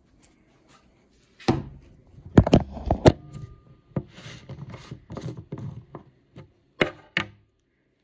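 Handling noise close to the microphone: a run of knocks and clunks with rustling between them, the loudest three close together about two and a half to three seconds in and two more near the end.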